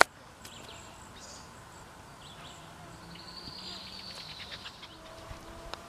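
A single sharp click as a hickory-shafted golf club strikes the ball on a short approach shot. Birds chirp and insects buzz quietly in the background afterwards.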